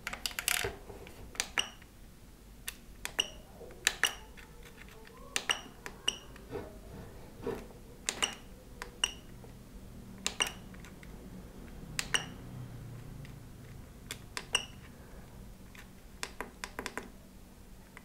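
FlySky GT3C radio transmitter's rotary dial and push buttons being clicked repeatedly while stepping through its menus, many presses answered by a short high beep from the transmitter's buzzer, showing that the repaired enter button and dial register.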